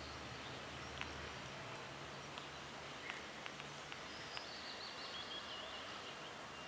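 Steady outdoor background hiss with a few faint clicks, and a small bird twittering in the background for about a second and a half past the middle.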